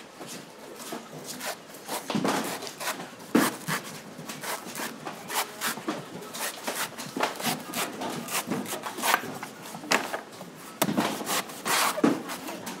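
Large knife shaving and chopping the husk of a young green coconut on a round wooden chopping block: irregular slicing and scraping strokes, with a few heavier knocks of the blade and coconut against the wood.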